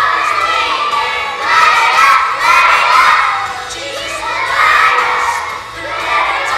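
A group of preschool children singing a song together loudly, in phrases with short pauses between lines.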